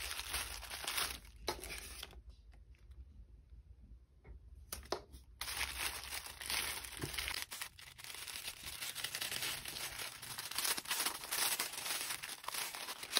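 White tissue-paper wrapping crinkling and rustling as a package is torn open by hand, with a short lull about two seconds in and busier crinkling after it.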